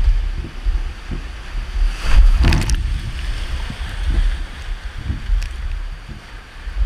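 Whitewater rapids rushing around an inflatable raft, with wind and water buffeting the camera microphone in low thumps. A loud burst of splashing comes about two seconds in and lasts under a second.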